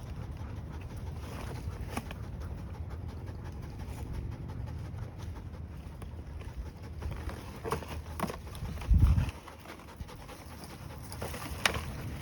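A person panting heavily from the exertion of climbing, with scattered small snaps and rustles and one loud, low thump about nine seconds in.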